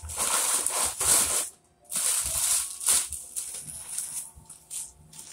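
Plastic snack wrappers crinkling and rustling as packs are handled and sorted, in bursts with a brief pause about two seconds in.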